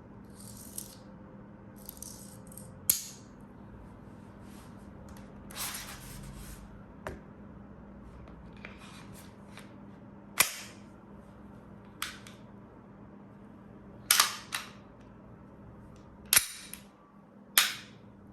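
Full-metal gas-blowback airsoft pistol (KJW KP-18, a Glock 18 replica) firing single shots: about seven sharp reports, a second or several apart, two of them in quick succession about two-thirds of the way through. Softer clicks and rattles of the gun being handled come between the shots.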